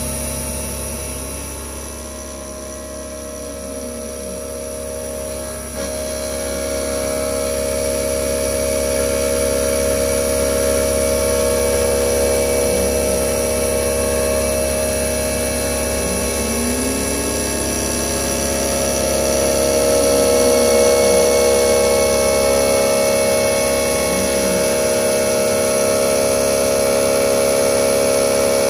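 CNC milling machine running, its spindle driving an end mill through a connecting-rod blank with a steady whine. A fainter tone rises and falls in pitch a few times, and the machine gets louder about six seconds in.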